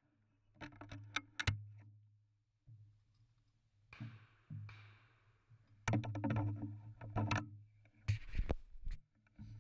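Irregular clicks, knocks and rustles of a shotgun being handled and carried, picked up through a camera mounted on its barrel, over a faint low hum.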